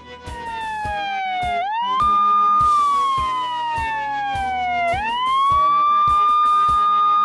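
Police siren wailing in slow sweeps: the pitch glides down over a few seconds, swoops back up and holds high, twice over. Background music with a steady beat plays under it.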